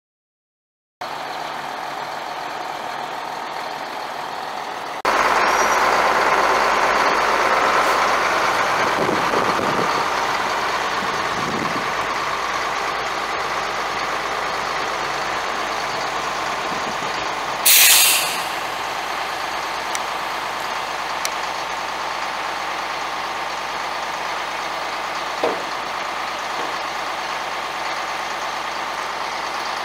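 A 1991 International 4900 dump truck's DT466 inline-six diesel running at idle; the sound gets abruptly louder a few seconds in. About two-thirds of the way through there is one short, loud hiss of air from the air-brake system.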